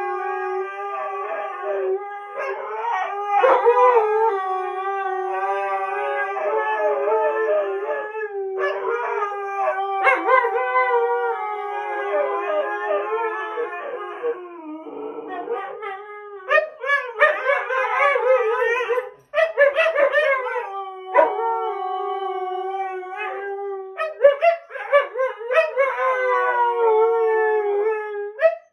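Two Siberian huskies howling together in long, overlapping howls: one holds a steady low note while the other wavers and glides above it. From about halfway the howls break into shorter, choppier calls.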